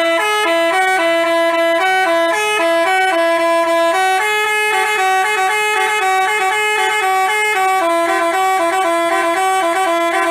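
Basuri telolet bus horn, a multi-tone horn, playing a loud, continuous tune of quickly stepping notes.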